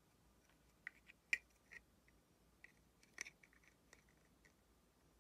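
Faint clicks and light taps of small plastic parts being handled: an LED tea light and a 3D-printed ghost shell fitted over it. A few scattered ticks, with two sharper clicks about a second and a half and three seconds in.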